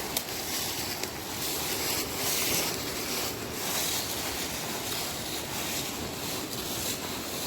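Wind rushing outdoors, rising and falling in gusts.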